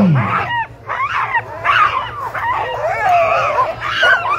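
A harnessed sled dog team barking and crying out all at once, many overlapping high calls rising and falling in pitch: the excited din of dogs held back at a race start, eager to run.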